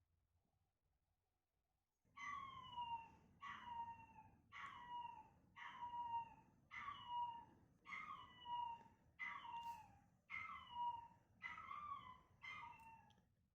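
Chihuahua puppy crying: about ten high whining cries, roughly one a second, each sliding down in pitch, starting about two seconds in.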